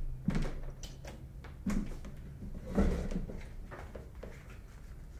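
A few dull knocks and thuds, the loudest nearly three seconds in, with a low hum over the first second.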